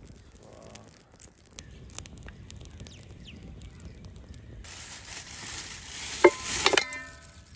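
Faint crackle of a small wood fire of twigs and dry grass. Then plastic bag rustling as raw chicken pieces are tipped out, with a sharp metallic clank and a ringing tone about six seconds in as they hit a steel pot, then a smaller clank.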